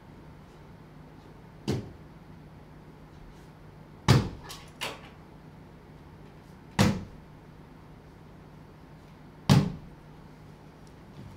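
Five heavy wooden thumps against a wooden cabinet, spaced two to three seconds apart, the first and a quick follow-up to the second lighter, each ringing briefly in the room. A steady low hum runs underneath.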